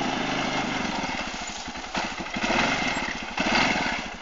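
Quad ATV engine pulling through deep mud, running steadily at first and then revving up in two louder surges, about two seconds and three and a half seconds in.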